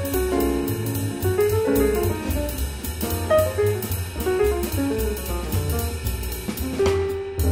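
Jazz piano trio playing: a piano melody over bass and drums, with steady cymbal strokes that drop out briefly near the end.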